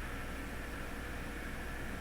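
Steady background hiss with a low hum underneath: room tone, with no distinct event.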